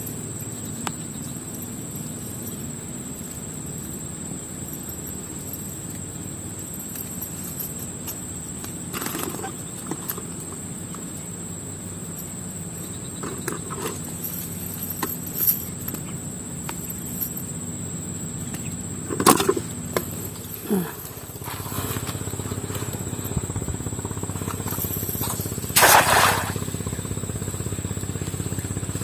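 Outdoor ambience: a steady high-pitched insect drone over a low rumble. A few short sharp knocks break in, the loudest about two-thirds of the way in and near the end, and the low rumble grows louder after about two-thirds of the way in.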